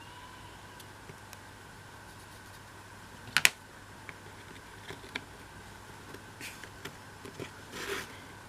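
Light clicks and taps of laser-cut MDF pieces being handled and slotted together. The loudest is a sharp double click about three and a half seconds in, followed by scattered smaller taps and a brief rustle near the end, over a faint steady hum.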